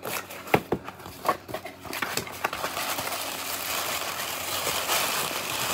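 Cardboard mailer box being opened: a few sharp clicks and scrapes as the lid flap is pulled up. From about three seconds in, tissue paper rustles and crinkles steadily as it is handled.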